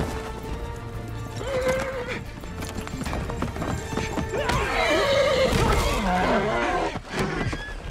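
Horses whinnying over galloping hoofbeats on dirt, with a long, strong whinny from about four and a half to six and a half seconds in, over background music.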